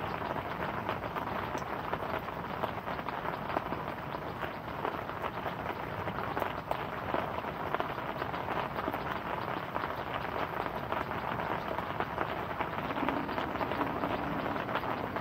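Steady rain falling: a dense, even patter of many small drops.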